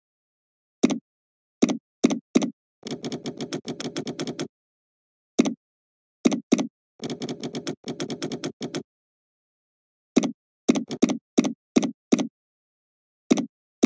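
Computer keyboard typing in two short quick runs, with separate single mouse clicks before, between and after them.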